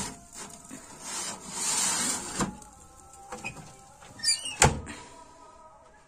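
Metal clatter and scraping at a wood-burning stove's oven as the pizza pan is handled, with a sharp ringing metal clank, the loudest sound, about four and a half seconds in as the oven door is shut.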